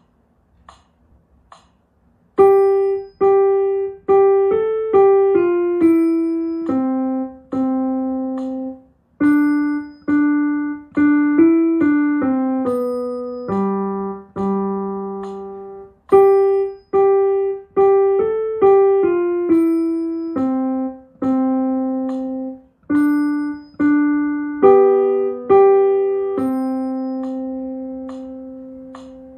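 A simple piano melody played mostly one note at a time, in four short phrases with brief breaks between them. It ends on a long held note that slowly dies away.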